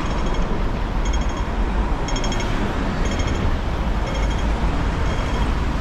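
Pedestrian crossing's audible signal beeping about once a second, with steady traffic rumble underneath.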